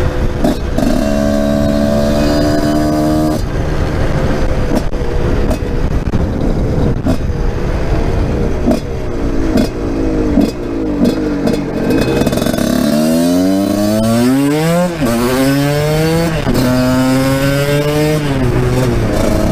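Husqvarna SMS 125 supermotard's single-cylinder two-stroke engine running under way, with a deep, bassy exhaust. It holds fairly steady at first, then from about two-thirds of the way in its pitch climbs and drops several times as it accelerates and shifts up through the gears.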